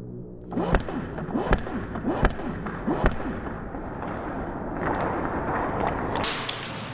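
Airsoft gun shots: four sharp pops about three-quarters of a second apart over steady background noise, followed by a few seconds of steady noise.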